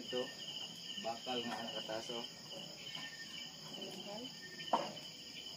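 Crickets and other night insects chirring steadily in a fast pulsing trill, with faint voices talking in the background. One short sharp sound stands out about three-quarters of the way through.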